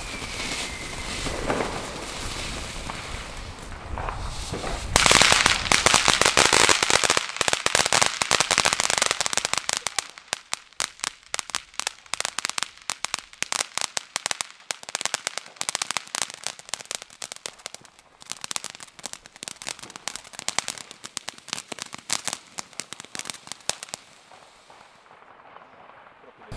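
A ground firework fountain spraying sparks. A loud hissing rush starts about five seconds in, then turns into dense crackling that thins out and dies away near the end.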